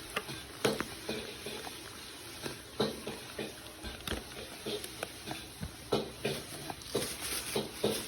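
Irregular clinking and knocking of kitchen utensils and dishes over a steady background hiss.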